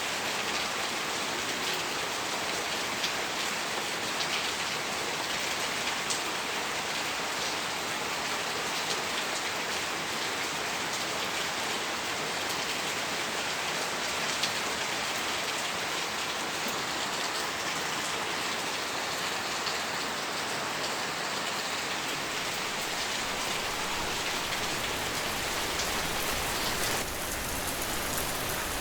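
Steady rain falling, an even hiss with an occasional louder single drop.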